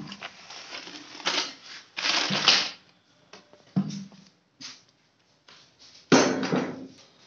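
Clear plastic bag of tile leveling-system parts being handled, the plastic crinkling and rustling in irregular bursts, the loudest about two seconds in and again near the end.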